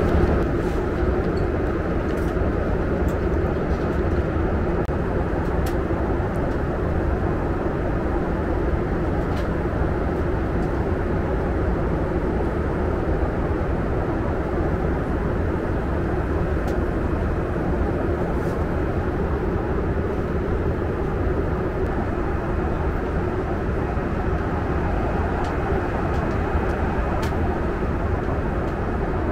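Steady cabin noise inside a Lufthansa Boeing 747-8 in flight: an even rush of airflow and engine noise that doesn't change, with a few faint clicks.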